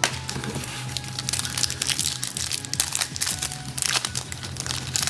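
Foil wrappers of trading-card packs crinkling and tearing as the packs are opened by hand, a dense run of sharp crackles.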